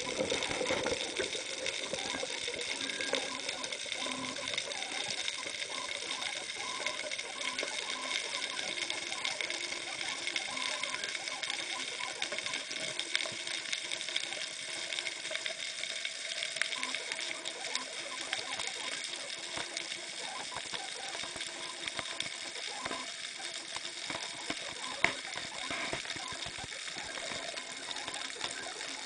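Underwater sound picked up by a camera in a waterproof housing: a steady hiss with faint constant high whines, and scattered small clicks and crackles throughout, one sharper click about 25 seconds in.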